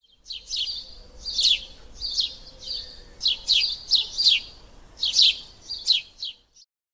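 Small birds chirping: repeated short, high-pitched chirps, each sweeping quickly downward, in irregular groups of two or three.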